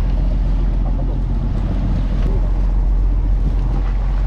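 Fishing boat's engine running with a steady drone, mixed with wind and sea noise.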